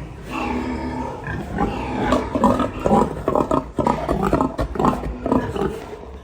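Loud farm-animal calls: one drawn-out call soon after the start, then a rapid run of short, harsh calls one after another.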